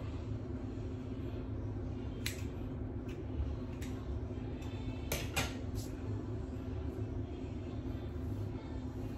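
A handful of sharp metallic clicks from hair-cutting scissors being handled, the loudest a quick pair about five seconds in, over a steady low hum.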